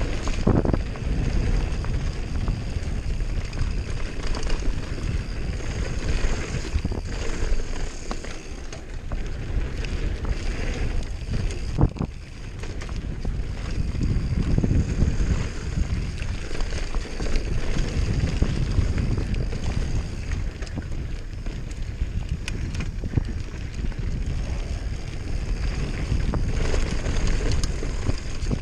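Giant Glory downhill mountain bike ridden fast down a dirt trail: tyres rumbling over the dirt and the bike rattling, with wind buffeting the camera's microphone. There is a sharp knock about twelve seconds in.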